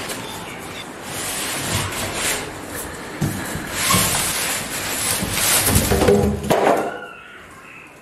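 A washing machine's cardboard carton scraping and rustling against its polystyrene packing and plastic wrap as it is lifted off, with a few dull knocks. Quieter near the end.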